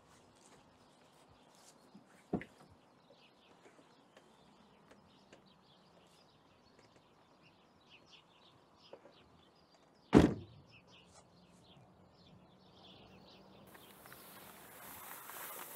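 A car door slammed shut, heard from inside the cabin, about ten seconds in, after a lighter knock about two seconds in. Faint birdsong outside, and a hiss swells near the end.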